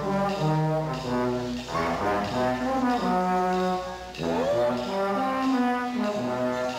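Waltz music from a stage score: a melody of long held notes moving in steps over a steady bass line, with short breaks between phrases.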